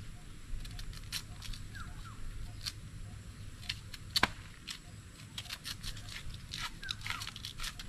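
Kitchen knives scraping and slicing the thick peel off raw cassava roots: irregular short scrapes and clicks, with one sharper knock about four seconds in.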